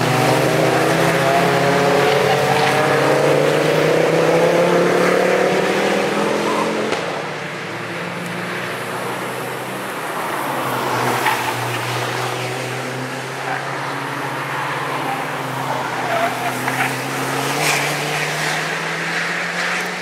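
Several road cars accelerating one after another through a track corner, their engines rising steadily in pitch. About seven seconds in the sound drops away, and another car's engine climbs in pitch as it accelerates toward the end.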